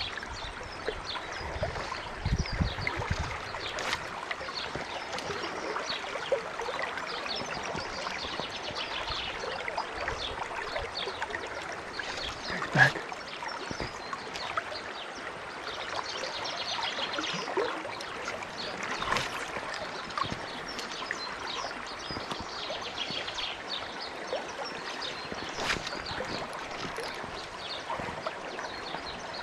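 Shallow spring creek running over a gravel bed: a steady babble of flowing water, with a few short clicks and knocks, the sharpest a little before halfway.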